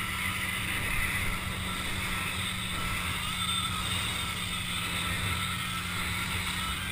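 Steady rush of wind over a helmet-mounted microphone, mixed with water hissing and spraying under a board towed at speed behind a motorboat.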